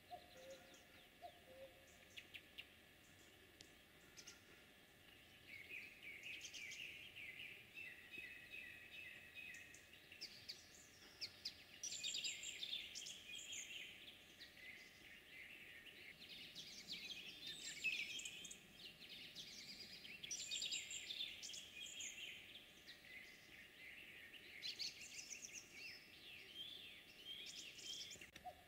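Faint songbirds singing, several chirping songs overlapping, starting about five seconds in.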